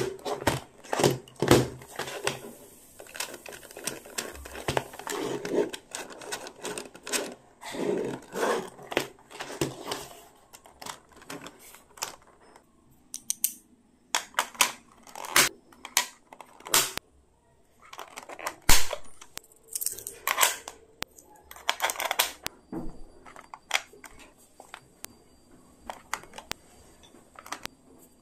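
Pencils, erasers and other small stationery being handled and set into a plastic pencil case, clicking and tapping against the plastic. A busy run of clicks and rustling for about the first ten seconds, then separate, sharper clicks and taps.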